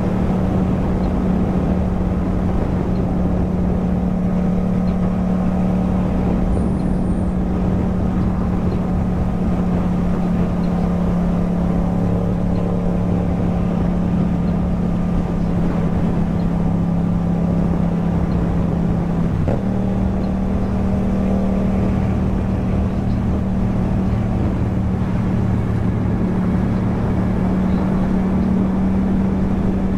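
Yamaha MT-07 parallel-twin engine through an Akrapovič exhaust, running steadily under way at an even road speed. Its note holds at one pitch, breaks briefly about 19 seconds in, then carries on slightly higher.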